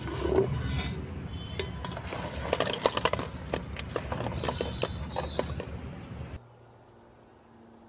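Fried gulab jamun balls tipped off a plate into a steel pot of sugar syrup: a quick run of small plops and splashes with light clinks. The sound drops to near quiet about six and a half seconds in.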